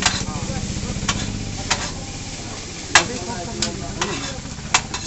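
Chowmein noodles stir-frying in a large wok: a continuous sizzle with a low steady rumble beneath, broken by about seven sharp clanks of metal utensils striking the wok and cooking pot, the loudest about three seconds in.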